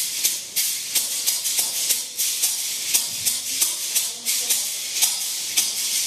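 Guasá, a Colombian tube shaker made of guadua bamboo filled with seeds, shaken in a steady rhythm of sharp rattling swishes, about three strokes a second.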